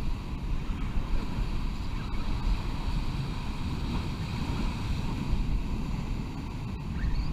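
Ocean surf breaking and washing over jetty rocks, with wind buffeting the microphone.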